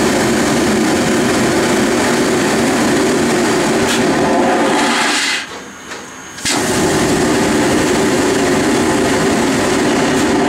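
Steam locomotive 23 076 letting off steam: a loud, steady hiss of escaping steam that breaks off about five seconds in and starts again about a second later.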